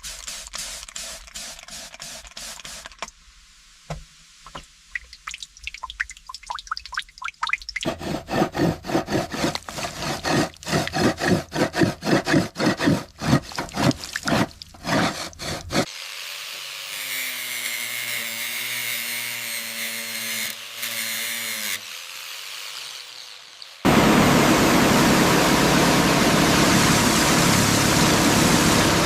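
A run of workshop tool sounds that change abruptly: fast rhythmic strokes for about the first half, then a motor whining steadily, then a loud steady hiss starting near the end.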